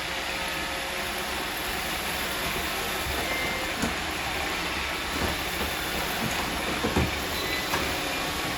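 Several robot vacuums running together over a floor scattered with rice: a steady whirring hiss with a few short knocks, which begins suddenly.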